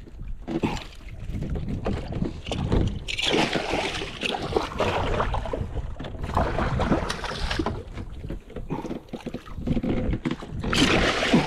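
Wind buffeting the microphone and water sloshing against a small boat's hull, with two louder hissing rushes of water, the first a few seconds in and the second near the end.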